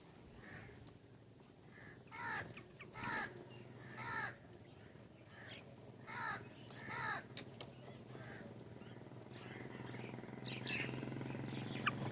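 Birds calling: a run of about five short, pitched calls, the first three a second or so apart and two more a few seconds later, with fainter chirps between.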